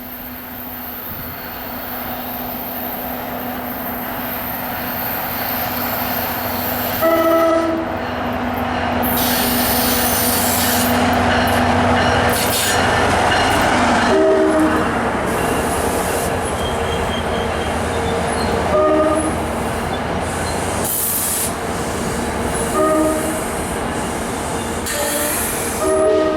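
Commuter train drawing closer and getting louder, its horn sounding several short blasts, the first about a quarter of the way in and then every few seconds, over the noise of wheels on the rails with some squeal.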